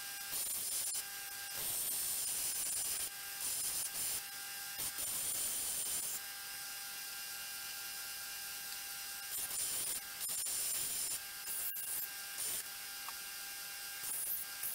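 Bench belt sander running with a steady motor hum while a workpiece is pressed against the moving belt in repeated passes, each pass a hissing grind. For a few seconds in the middle the belt runs free with only the hum, then the grinding starts again.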